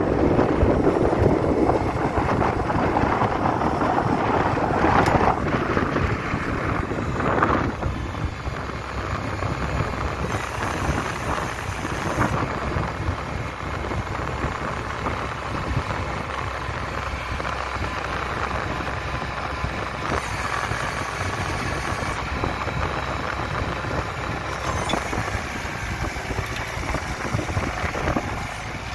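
Tracked hydraulic pile driver ramming a steel I-beam solar post into sand: a rapid, continuous hammering over the machine's running engine, loudest for the first several seconds, then steadier.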